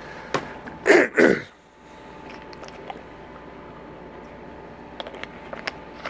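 A man clears his throat once, about a second in. After that there is only low room tone, with a few faint light clicks near the end.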